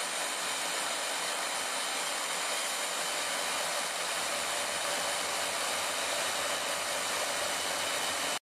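Power grinder running with a cast metal letterpress chase held against its spinning wheel, grinding down the casting's edge: a steady, even whir. It cuts off suddenly at the end.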